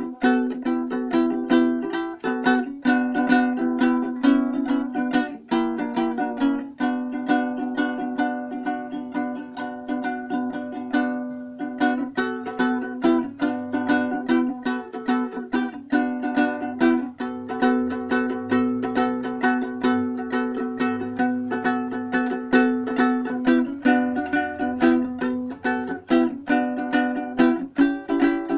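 Georgian panduri, a three-stringed plucked lute, strummed fast and continuously. A steady low note rings under the chords as they change above it.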